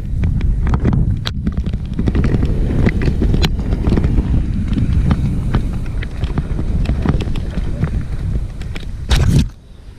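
Downhill mountain bike riding a rough trail: wind buffeting the microphone over the constant rattle and knocking of the bike's frame, chain and wheels on rocks. There is a louder jolt about nine seconds in, then the noise drops sharply.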